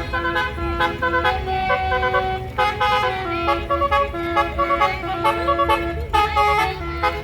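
Basuri telolet bus horn playing a fast tune of short, stepped horn notes, several pitches sounding at once, with a low rumble underneath.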